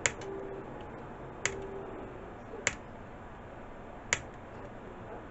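Flush-cut wire cutters snipping the excess component leads off a soldered circuit board: four sharp clicks, about one every second and a half.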